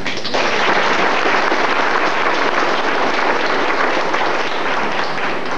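Audience applauding: a roomful of people clapping, building from a few separate claps into full applause within the first half second and tailing off near the end.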